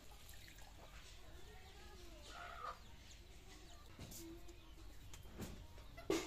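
Chickens clucking faintly in short, wavering calls, with a few light knocks in the second half.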